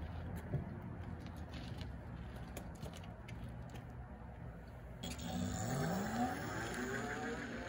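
Electric moped's 72-volt, 2 kW hub motor whining, rising steadily in pitch as it accelerates away, from about five seconds in. Before that there is only a low rumble with a few faint clicks.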